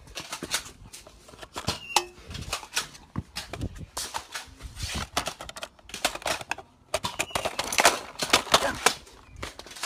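Plastic clicks and rattles from a Nerf blaster and its dart magazine being handled, with dense flurries of clicks near the middle and again near the end.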